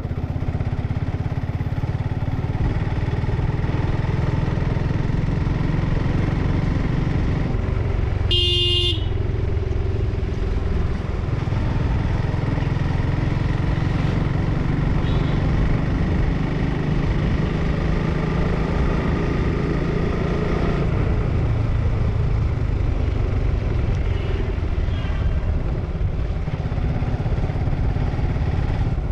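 Motorcycle engine running steadily while riding at low road speed, with wind rush. One short horn beep sounds about eight seconds in.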